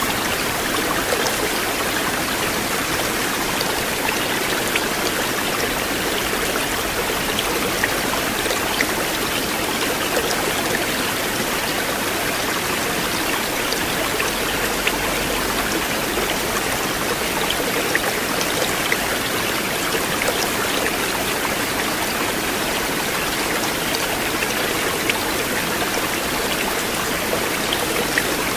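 River water flowing steadily: an even, continuous rush with scattered small splashy ticks.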